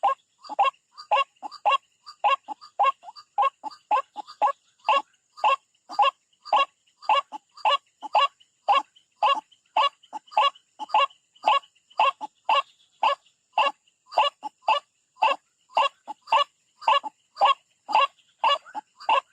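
White-breasted waterhen calling over and over: a short, nasal call repeated about two to three times a second without a break.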